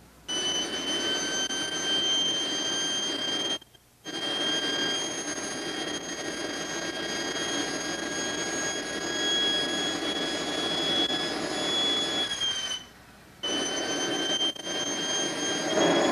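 Simjet 1200 model jet turbine running with a steady high-pitched whine over a rushing hiss. The whine sags slightly about twelve seconds in and climbs again near the end, as the rushing grows louder. The sound cuts out briefly twice.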